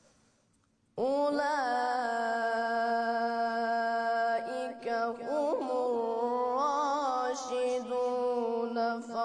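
Quran recitation: a reciter comes in about a second in after a near-silent pause, chanting in a slow melodic style, holding long drawn-out notes with wavering ornaments.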